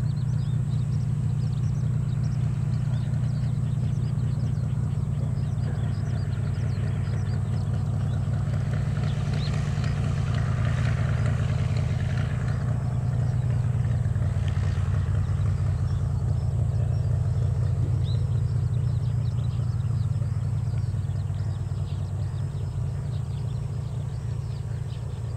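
Cessna light aircraft's engine running steadily, a low even drone that eases off slightly near the end.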